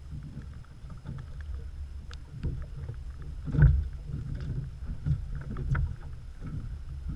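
Wind and lapping water against a small drifting fishing boat: a steady low rumble with several louder knocks, the biggest about halfway through, and light scattered ticking of raindrops on the camera housing.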